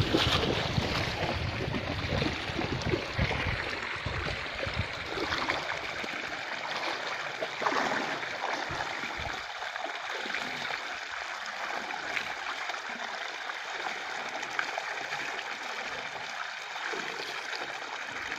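Water gushing from a borewell's outlet pipe and splashing into standing floodwater, a steady rush of water.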